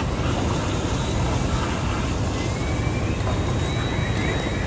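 Fire apparatus diesel engines running steadily, a heavy continuous rumble, with a faint thin high tone coming in past halfway.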